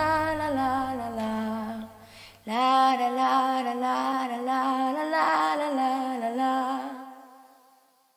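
A woman singing a slow, held melody with vibrato over a low steady drone. After a short break about two and a half seconds in, the voice carries on alone without the drone and fades out near the end.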